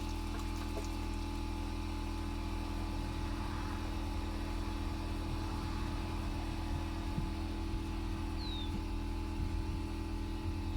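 An engine or motor running steadily at a constant speed, a low even drone, with a few faint ticks over it.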